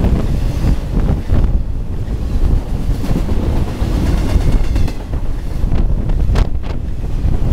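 A BNSF intermodal freight train passing close at speed: a loud, steady rumble from the cars and their wheels on the rails, with wind from the train buffeting the microphone.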